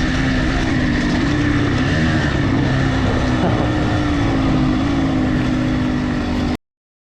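Dirt bike engine running under way, its pitch wavering up and down with the throttle, over a steady rushing noise; the sound cuts off abruptly to total silence near the end.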